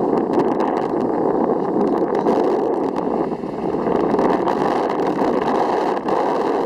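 Ice boat runners grinding over rough ice: a loud, steady rushing scrape with many small clicks and crackles through it.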